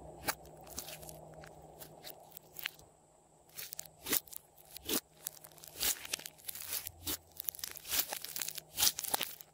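Hands poking and squeezing a large mound of glossy slime mixed with clay, which gives off a series of sticky clicks and small pops. These are sparse at first and come thick and fast from about three seconds in.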